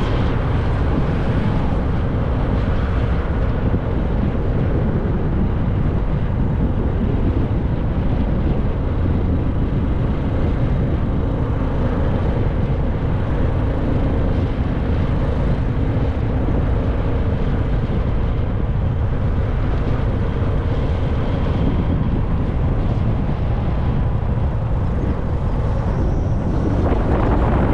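Motorcycle engine running at a steady speed during a ride, with wind rushing over the microphone.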